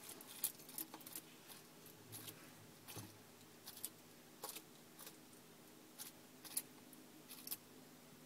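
Bearded dragon chewing a hornworm: a series of faint, short clicks of its jaws at irregular intervals, about one or two a second.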